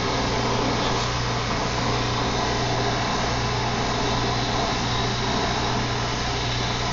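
Oxy-fuel brazing torch flame hissing steadily while heating copper pipe for a braze joint, with a steady low hum underneath.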